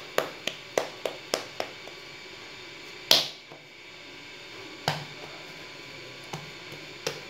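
A ball of stiff dough patted between the palms, sharp slaps about three a second, stopping about one and a half seconds in. A single louder slap comes around three seconds in, then a few light taps as the dough is pressed flat by hand on a marble counter.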